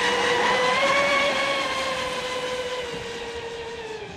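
Battery-powered RC racing catamaran running at speed on a high-rake prop, its electric motor giving a steady whine. The whine rises slightly about a second in, then sinks gradually in pitch and grows fainter as the boat runs away.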